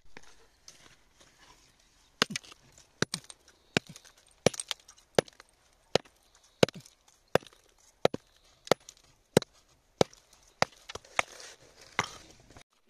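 A hand tool striking rock again and again, knocking loose stone and grit. The blows are sharp and evenly spaced, about one every 0.7 seconds, and start about two seconds in.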